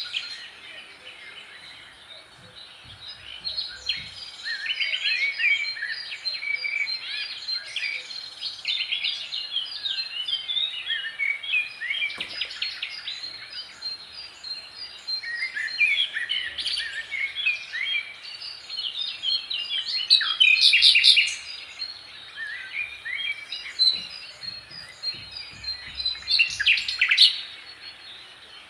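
Songbirds chirping and singing, many short calls overlapping, with louder runs of rapid notes about twenty seconds in and again near the end.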